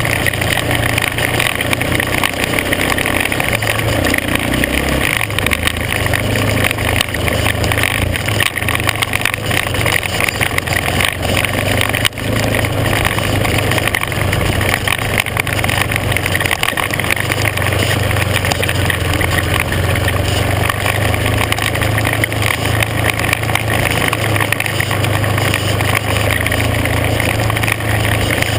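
Off-road vehicle engine running steadily while riding a gravel dirt trail, its pitch shifting a little up and down, under a constant rushing noise.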